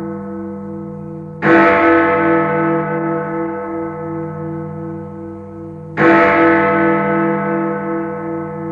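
A large bell struck twice, about four and a half seconds apart, each stroke ringing on and slowly fading, with one pulsing, wavering tone in the ring.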